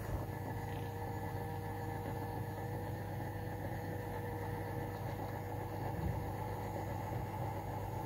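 Small electric motor of a toy mini washing machine running steadily, a constant low hum with a thin whine over it.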